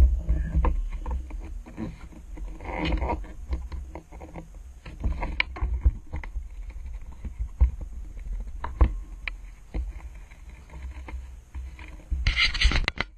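Lake water sloshing and lapping around a camera housing at the surface beside a boat hull, with a low rumble and many scattered knocks and clicks as the housing bumps and is handled. A louder rush of splashing comes near the end as it dips into the water.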